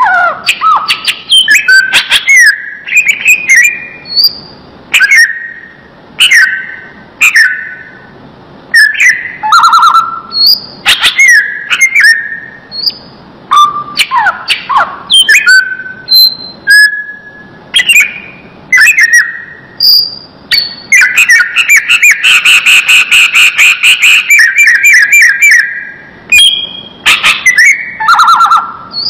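Cucak ijo (green leafbird) singing loudly: a long run of varied whistled phrases with sweeping notes, broken about two-thirds of the way through by a rapid trill of several seconds.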